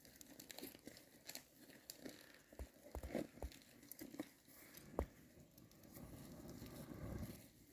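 Faint crinkling and rustling of handled food packaging, with scattered small clicks and one sharper knock about five seconds in.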